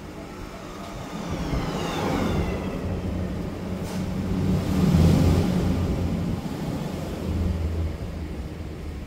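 A passing vehicle's engine grows louder to a peak about five seconds in, then fades.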